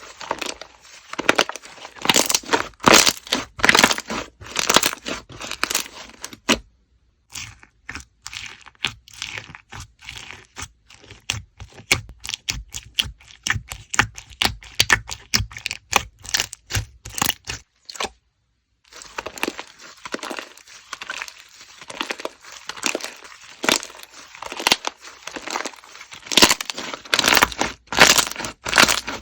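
Slime being pressed and squished by hand, giving a dense run of sharp crackles and pops, broken twice by a moment of total silence.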